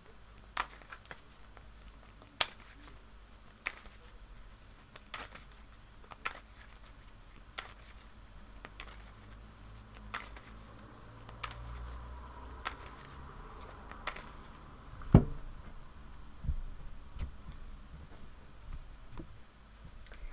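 A deck of oracle cards shuffled by hand: soft scraping of card stock with sharp taps every second or so, and one louder knock about fifteen seconds in.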